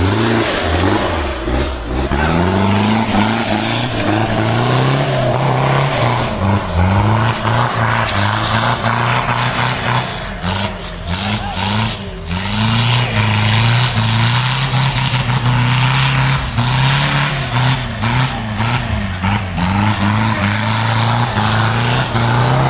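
Off-road 4x4 truck's diesel engine revving hard and repeatedly, its pitch climbing and dropping every second or two under load.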